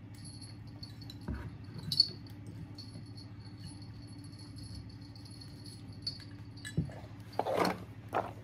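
Small toys clicking and rattling as they are picked up and sorted by hand on a floor, with a sharp clink about two seconds in and a brief rustle near the end, over a faint steady hum.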